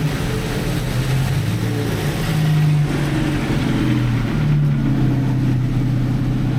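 Vehicle engine running while under way, its pitch stepping up and down a few times as the revs change.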